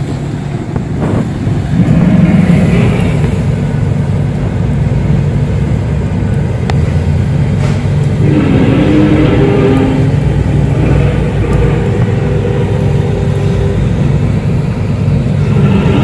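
Loud, steady low rumble of unknown origin, recorded on a phone as one of the 'strange sounds' heard in the sky. Higher wavering tones drift over it from about eight seconds in, and again near the end.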